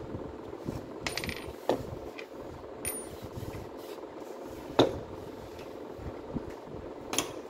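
About five sharp metallic clicks and knocks of small hard objects, a couple with a brief high ring, the loudest about two-thirds of the way in, over a steady low hum.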